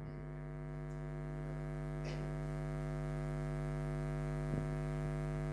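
Steady electrical mains hum in the microphone and sound system: a low buzz with many overtones that slowly grows louder. There is a faint click about four and a half seconds in.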